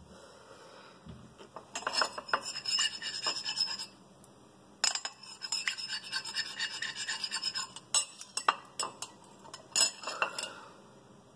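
Metal spoon stirring liquid in a square ceramic bowl, scraping and clinking against the sides in two bouts of a couple of seconds each. A few separate clinks of the spoon on the bowl follow near the end.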